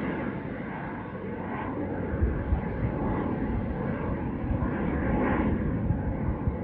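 Pilatus PC-24's twin Williams FJ44-4A turbofans, a steady jet roar from the business jet climbing away after takeoff. Irregular low rumbling thumps come through from about two seconds in.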